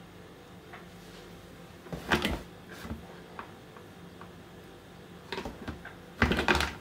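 Short clunks and knocks of a glass container being gripped and shifted on a stainless steel bench while a silicone spatula smooths ice cream mix in it, with a louder cluster about two seconds in and another near the end.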